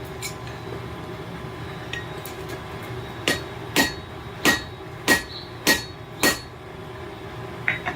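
Hand hammer striking a hot railroad-spike hook on an anvil: six ringing blows about half a second apart, starting about three seconds in, with a few light taps before them, over a steady hum.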